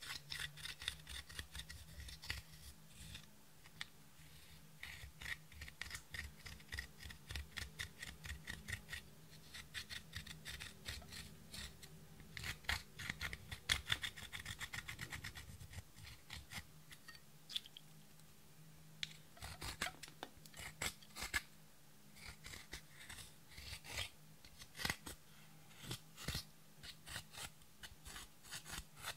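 Pressed eyeshadow in a plastic palette being scraped and crushed with a thin pointed tool: rapid gritty scratches and clicks in bunches, with a few short pauses. A faint steady low hum lies under it.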